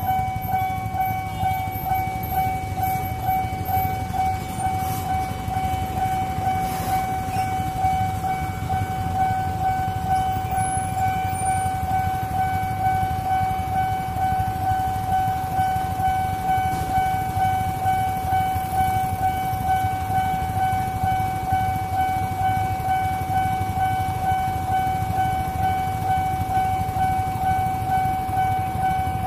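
Railway level-crossing warning alarm sounding continuously: a steady high ringing tone with a quick, even pulse, warning that a train is approaching. Idling motorcycle and traffic engines rumble underneath.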